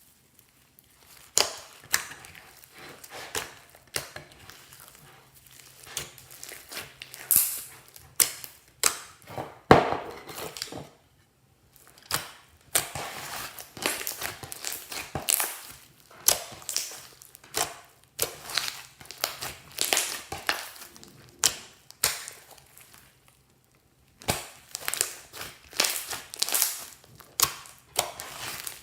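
Slime being squeezed and pressed by hand, giving clusters of quick crackling, crinkling pops. There are two short pauses, one about a third of the way through and one near the end.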